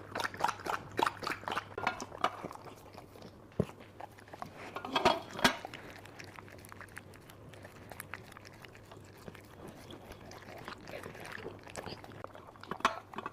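Dog eating from its bowl: a quick run of chewing and crunching clicks at the start, a few sharp clicks in the middle, then quieter eating and more clicks near the end.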